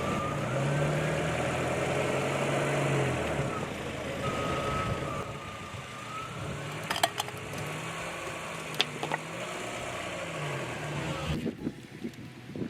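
Car engine running with its pitch rising and falling slightly as the car rolls. A few sharp cracks, two about seven seconds in and two about nine seconds in, sound as the tire crushes objects. The engine noise drops off suddenly near the end.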